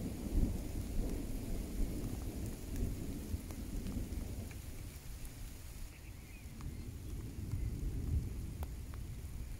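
Thunder rumbling from a passing thunderstorm: the low rumble is heaviest at the start, dies away over several seconds and swells again near the end. Light rain is heard with scattered raindrop ticks.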